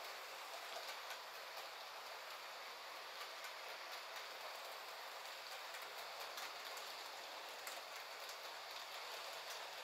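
Model railway passenger train rolling along the track: a steady rolling noise of wheels on rails, with faint scattered clicks.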